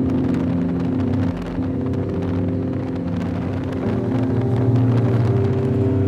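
A motor vehicle driving: steady engine and road noise heard from the moving vehicle.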